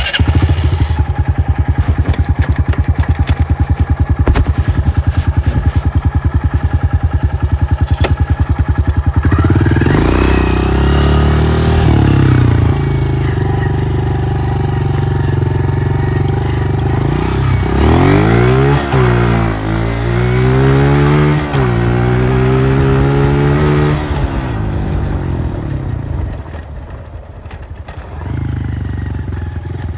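Honda CRF125F's air-cooled single-cylinder four-stroke engine on its stock exhaust, idling with a steady pulsing beat for about the first nine seconds. It is then revved up to about 30% throttle and held, blipped up and down several times, and settles back to idle near the end.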